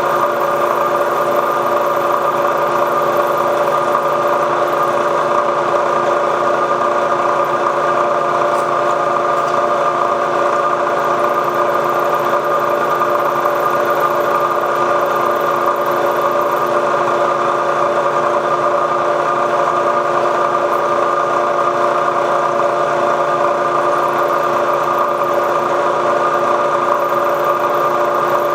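Milling machine running steadily, an 11/64-inch solid carbide end mill cutting the extractor slot in a Sako rifle bolt; an even hum with several held tones that does not change.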